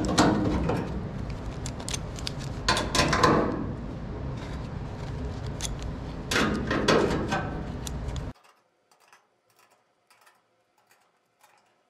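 Metal parts clattering and scraping as they are handled, with a few louder knocks over a steady background hum. The sound cuts off abruptly about eight seconds in, leaving near silence.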